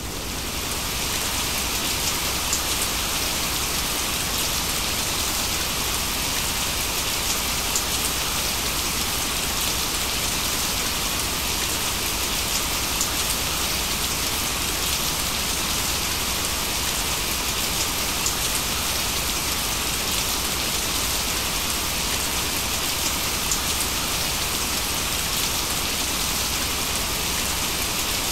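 Steady rain, an even hiss with faint scattered drop ticks, swelling up in the first second and then holding level.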